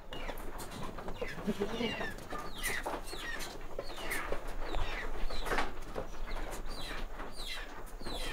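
Farmyard birds calling: a steady run of short, high, falling chirps, about two or three a second, with a few lower clucks near the start.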